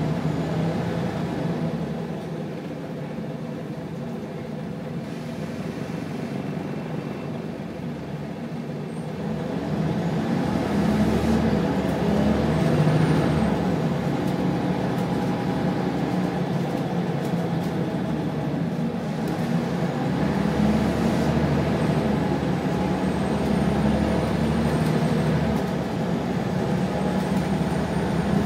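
Inside the cabin of a Wright Solar-bodied Scania single-decker bus on the move: the rear Scania diesel engine runs steadily under the general road and body rumble. It is quieter for the first several seconds, grows louder about ten seconds in, and stays so.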